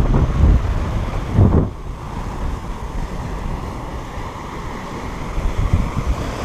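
Wind buffeting the microphone over the rush of water breaking along the hull of a Hallberg-Rassy 54 sailing yacht under way. Two heavy low gusts of wind noise come in the first two seconds.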